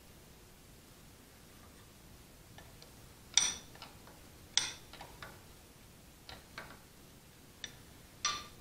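Sharp metallic clinks of a wrench on a tractor distributor's hold-down clamp, about eight irregularly spaced clicks with a short ring, starting about three seconds in.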